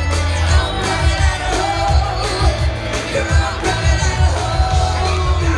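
Live rock band playing with a singer, over a steady drum beat and heavy bass, as heard from the audience.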